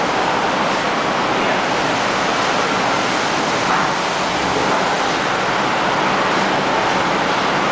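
Automatic car wash running: rotating brushes scrubbing against the car under water spray, a steady loud rushing swish. Heard from inside the car.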